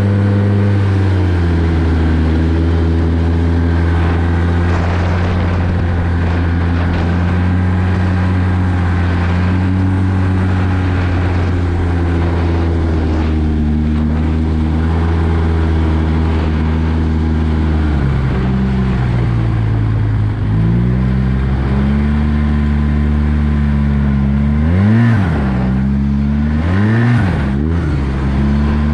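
Arctic Cat 1100 Turbo snowmobile's turbocharged three-cylinder four-stroke engine running at steady trail speed. Its pitch eases off about two-thirds of the way through and climbs back, then near the end the throttle is briefly lifted and reapplied twice, the pitch dipping and rising each time.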